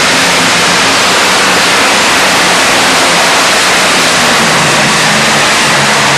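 Modified pulling tractor at full throttle, dragging the weight-transfer sled down the track. The engine noise is very loud and steady, a dense roar with a faint low engine hum underneath.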